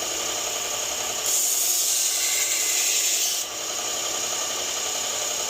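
1x30 belt grinder running steadily, with the hiss of a Global paring knife's edge ground against the belt for about two seconds, starting a little over a second in.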